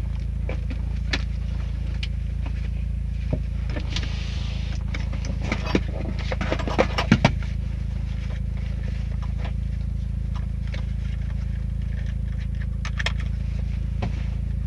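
Rally car engine idling steadily, heard inside the cabin, with rustling and metallic clicks as the driver pulls on gloves and fastens his harness buckles; a quick run of sharper clicks comes about six to seven seconds in.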